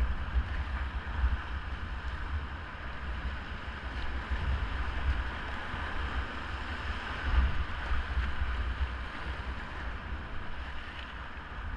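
Whitewater river rushing steadily, with wind buffeting the microphone in uneven low rumbles.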